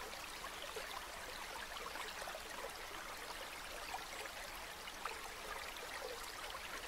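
A steady, faint hiss with many small scattered ticks through it.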